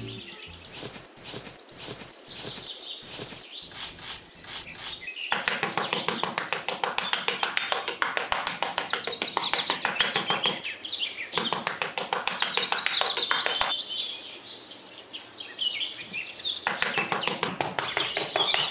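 Birds chirping in several bouts of quick high trills that fall in pitch, over a dense, fast ticking.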